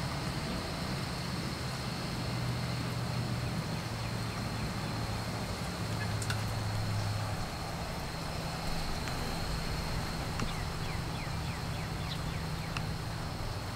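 Light rain falling steadily, with a few sharper drip ticks. A low hum underneath shifts pitch a couple of times, and a thin steady high tone runs above it.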